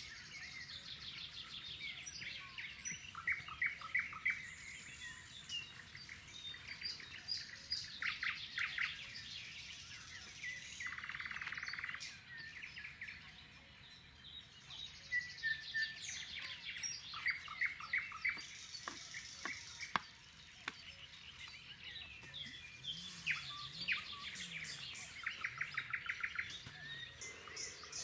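Several songbirds singing in a dawn chorus: overlapping chirps and fast, rattling trills of repeated notes, with one sharp click about two-thirds of the way through.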